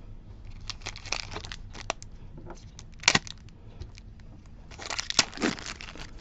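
Light clicks and rustles of trading cards being handled, a sharp crackle about three seconds in, then the foil wrapper of a Pokémon Fusion Strike booster pack crinkling as it is gripped and torn open near the end.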